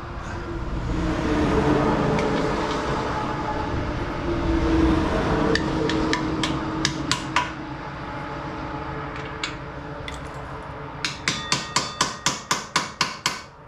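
Steady road noise that swells and fades, then a few sharp metallic taps midway and a rapid run of about a dozen ringing metal taps near the end, some five a second.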